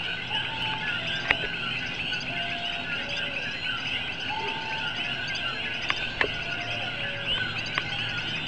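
Dense night chorus of coquí frogs: many overlapping short chirps calling continuously, with a few short lower notes among them and a few sharp clicks, the loudest about a second in.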